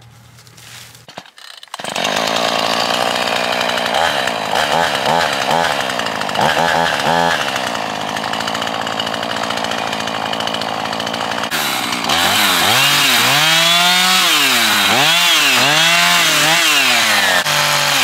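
Chainsaw starting up about two seconds in and running, blipped a few times, then from about twelve seconds revving up and down again and again as it cuts through brush.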